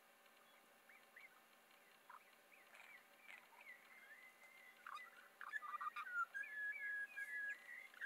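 Spiny-cheeked honeyeater calling: a series of short, quickly rising and falling whistled notes and gurgles, faint at first, becoming louder and busier about five seconds in, with a longer steady whistled note near the end.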